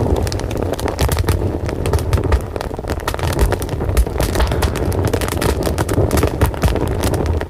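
Fire crackling: dense, irregular pops and snaps over a steady low rumble of the flames.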